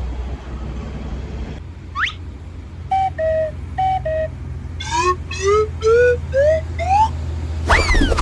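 Multi-tone 'telolet' horn on an Indonesian bus or truck playing short melodic phrases over a steady engine rumble: a quick rising whoop, two falling two-note calls, then a run of notes climbing step by step, and a long falling swoop near the end.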